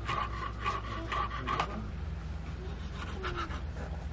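Ceramic kitchen knife chopping on a wooden cutting board: a quick run of strokes through leafy herbs, then sparser cuts.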